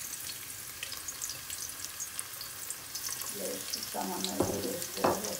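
Chopped garlic sizzling and crackling in hot vegetable and mustard oil in a pot, a steady hiss full of small pops, with a couple of sharp knocks near the end.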